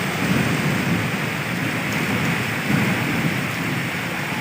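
Heavy rain falling, a steady, dense hiss of downpour.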